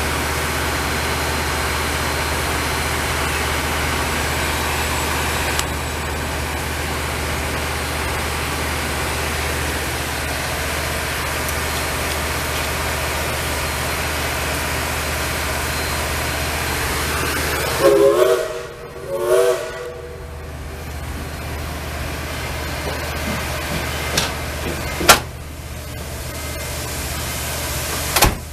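Steam locomotive standing with a steady hiss over a low rumble, then two short blasts of its whistle after about 18 seconds. A sharp click follows a few seconds later.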